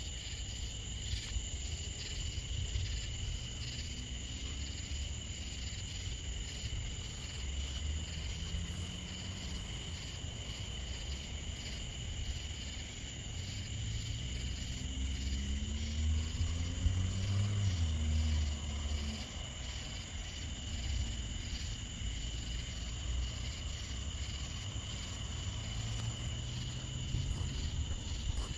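Summer evening insects chorusing, a steady high buzz throughout. Under it runs a low rumble that swells about halfway through, with a brief rising drone in it, then eases off.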